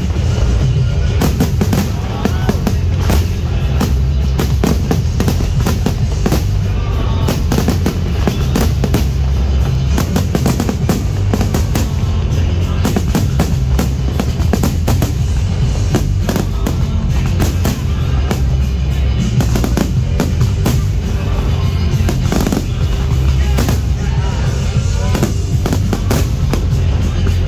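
Fireworks aerial shells bursting in rapid, continuous succession, with crackling, over loud music playing the whole time.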